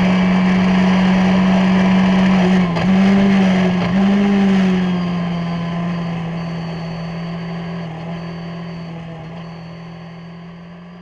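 Skip Barber formula race car's 2.0-litre SOHC engine at high revs at speed, heard onboard with wind noise. The engine note dips briefly twice, about three and four seconds in, then drops in pitch and fades away.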